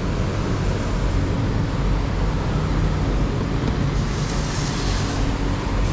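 Steady background rumble and hiss, with a brief rise in high hiss about four seconds in.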